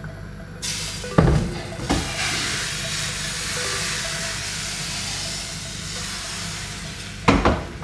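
Thin pancake batter frying in a hot oiled pan, a loud even sizzle that starts suddenly about half a second in, with a few short knocks of the pan or utensils, the last one near the end.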